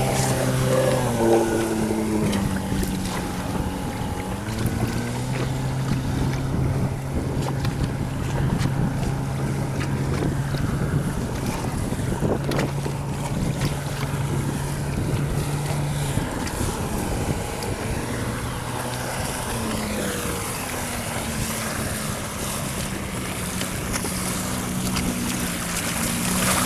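Outboard motor running over choppy sea, its drone holding steady for long stretches, dipping in pitch a couple of times and rising again near the end, with wind and water noise throughout.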